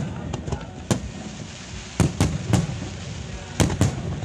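Aerial firework shells bursting in a display, six sharp reports in all: one about a second in, three in quick succession around two seconds, and two close together near the end, with crackling from the stars between them.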